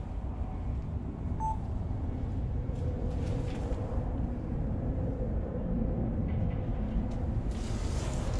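Steady low background rumble, with a faint hum in the middle and a couple of short soft scuffs, one of them near the end.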